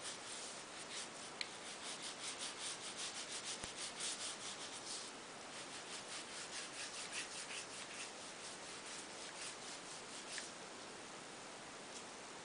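Paintbrush rubbing back and forth on watercolour paper in quick strokes, about five a second for a few seconds, then slower and fainter strokes.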